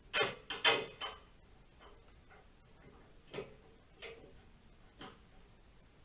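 Short sharp metal clicks and taps as a bolt, star washer and small screw are fitted by hand into a treadmill's steel handlebar crossbar: a quick cluster in the first second, then a few single clicks spaced about a second apart.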